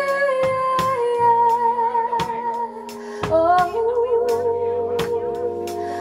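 A live band with a woman singing long held notes with vibrato, over bass notes and a steady drum beat of about two hits a second.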